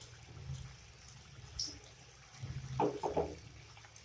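Hot oil sizzling steadily around sesame balls deep-frying in a wok. About three seconds in, a brief louder sound of two or three quick pulses rises over the sizzle.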